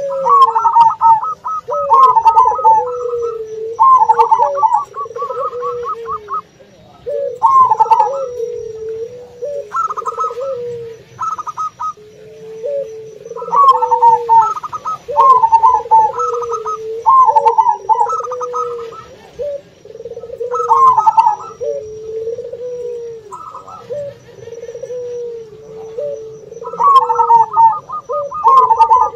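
Zebra doves (perkutut) calling over and over in short, rolling trilled coos, with a lower, repeated cooing of puter doves underneath.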